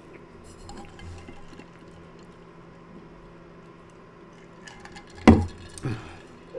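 A person sipping a drink through a straw, with faint liquid sounds. About five seconds in come two short loud sounds falling in pitch, the first the louder.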